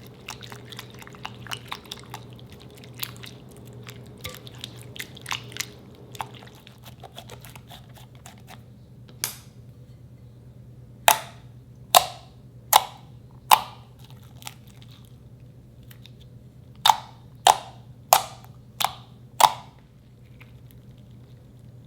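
Slime being handled close to the microphone: soft wet crackles at first, then sharp loud pops, one alone, then a run of four and later a run of five, spaced well under a second apart.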